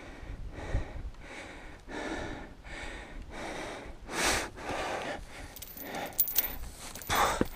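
A climber breathing hard, panting in and out about twice a second. Sharp clicks and a louder burst of noise come near the end.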